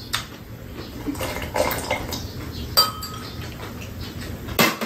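Metal spoons and chopsticks clinking against ceramic bowls during a meal, a scatter of separate clinks, one ringing briefly about three seconds in, with a louder clatter near the end.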